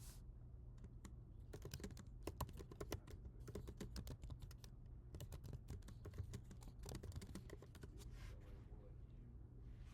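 Typing on a computer keyboard: faint key clicks in several quick runs, starting about a second and a half in and stopping near the eight-second mark.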